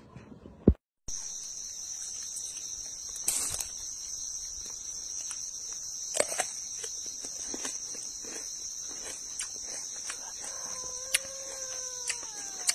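Steady high-pitched insect chorus, cicadas or crickets, starting abruptly about a second in, with scattered light clicks and a short falling call near the end.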